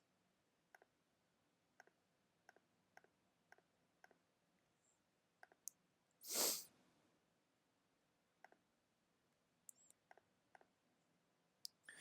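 Faint clicks of a computer mouse and keyboard at irregular intervals, with one short breath about six seconds in.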